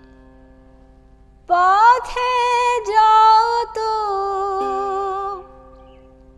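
A woman singing one long, melismatic Baul phrase with sliding pitch, from about a second and a half in, over the single plucked string of an ektara. The ektara note rings under the voice and is plucked again about four and a half seconds in, ringing on alone after the singing stops.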